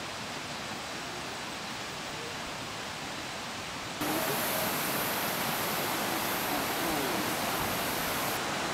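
Steady rushing outdoor noise with faint distant voices, jumping louder and brighter about four seconds in.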